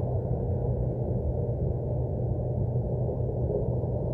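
Steady low industrial roar from a casting plant's machinery, heard from inside a bedroom: a constant deep hum with no change in level. The uploader describes it as an engine-type roar with harmonics and blames failing equipment.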